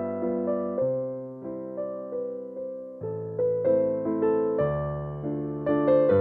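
Background music: a piano playing a melody over chords, the notes struck and fading.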